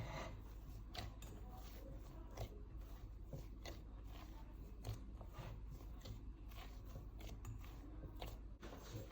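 Bread dough being mixed and kneaded in a glass bowl: faint, irregular squishing and sticky slaps with light knocks.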